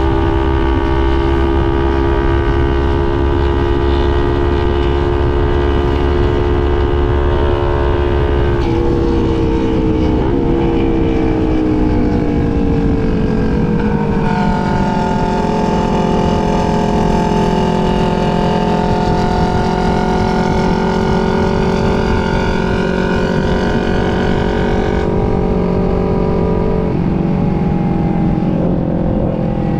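Motorcycle engine running steadily while riding, with wind and road noise underneath. Its pitch drifts slowly down, then rises and settles at a new pitch a few times as the revs change.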